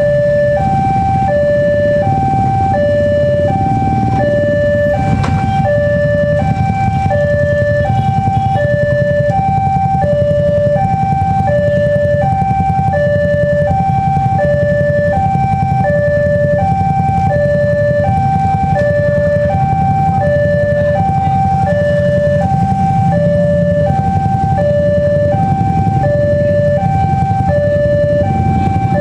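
Railway level-crossing warning alarm from the loudspeaker on the crossing signal: an electronic two-tone chime alternating high and low, about one pair a second without a break, the sign that a train is approaching. A low steady rumble of idling motorcycle and car engines from the waiting traffic runs underneath.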